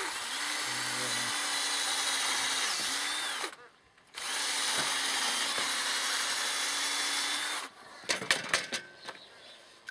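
Electric drill drilling holes in wheelbarrow handles: it runs steadily for about three and a half seconds, stops briefly, then runs again for about three and a half seconds. A few sharp clicks follow near the end.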